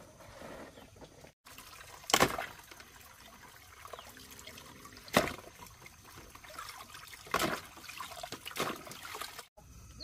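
Water being splashed and poured in about four short bursts, with a low trickle between them, as a child washes a car with water.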